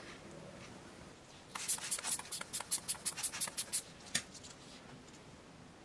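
Small handling sounds on a plastic digital-watch module: a quick run of a dozen or so scratchy clicks, about five a second, starting about a second and a half in, then one more click a little later, as gloved fingers and tweezers work the LCD in its frame.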